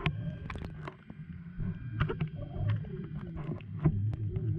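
Underwater audio from a camera set near the seabed: a steady low hum with a wavering undertone, broken by many scattered sharp clicks and knocks.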